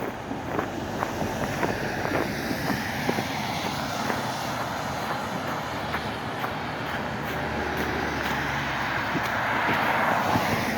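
A few footsteps, then a passing vehicle on the road: its engine and tyre noise swell steadily, loudest near the end, then begin to fade.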